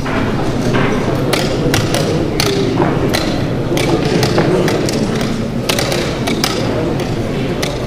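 Blitz chess being played fast: wooden pieces set down on boards and digital chess clock buttons pressed, a quick, irregular run of sharp knocks and clicks over the murmur of a crowded hall.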